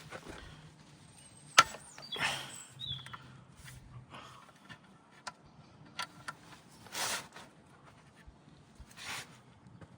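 Hand tools working on the front differential's drain plug: scattered sharp metallic clicks and knocks, with a few short scrapes.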